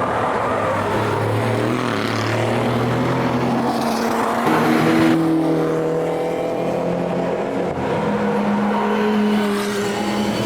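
Race cars passing one after another at speed, several engines sounding at once with their pitch sliding up and down as they change gear and accelerate. One car passes closest about four and a half seconds in, the loudest moment.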